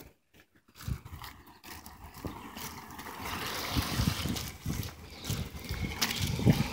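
Walking outdoors with a handheld phone: irregular low thumps of footsteps and handling over a steady outdoor hiss that grows louder from about a second in.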